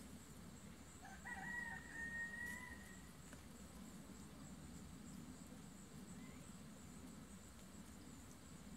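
A rooster crowing once, faintly: one drawn-out call about a second in that rises and then holds for about a second and a half. Steady low background rumble throughout.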